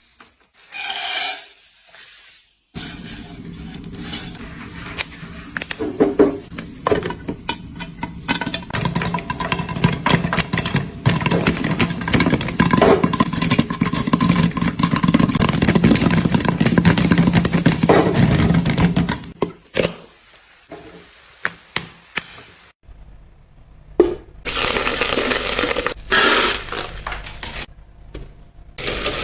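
Popcorn popping: a dense run of many quick sharp pops over a steady low hum, thinning out to a few scattered pops. Near the end there are a few louder clattering knocks.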